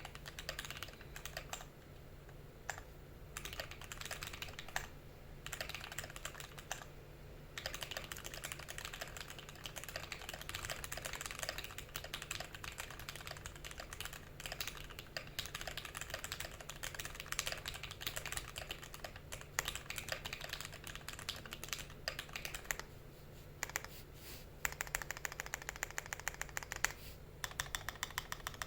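Typing on a Tofu65 mechanical keyboard with lubed Tealios V2 linear switches on a brass plate: a dense, fast run of key strokes with brief pauses. Near the end the strokes come faster and very evenly spaced.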